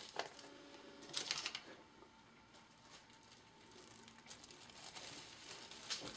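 Faint rustling of clear plastic film being handled, with a couple of brief rustles in the first second and a half. About four and a half seconds in, the crinkling grows denser and louder as the film is readied to cover a freshly sown pot so the seeds stay moist.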